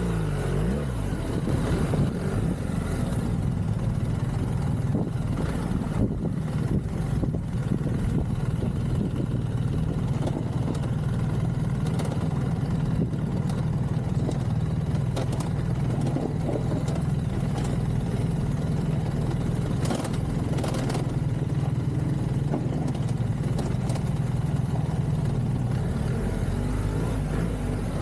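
BMW R1300GS boxer-twin engine running steadily under way on an off-road track. Its pitch rises and falls near the start and again near the end, and a few knocks come through now and then.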